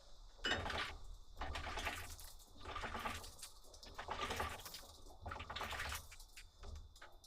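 Grapes being crushed for winemaking: a run of bursts of many small clicks, roughly one a second.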